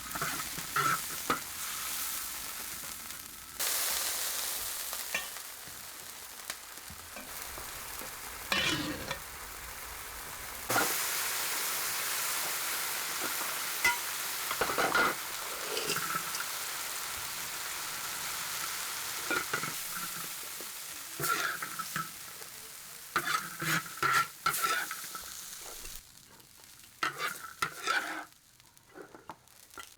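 Food sizzling as it fries in hot oil, with a utensil stirring and scraping in the pan in short strokes. The sizzle changes level abruptly a few times and drops away in the last few seconds, leaving scattered knocks.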